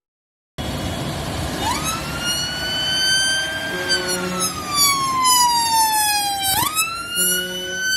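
Ambulance siren wailing, rising slowly in pitch, falling slowly, then sweeping sharply back up near the end, over the engine of a large tractor passing close by.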